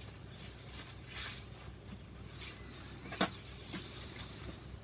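Quiet rustling and handling of parcel packaging in soft scattered bursts, with one sharp click about three seconds in.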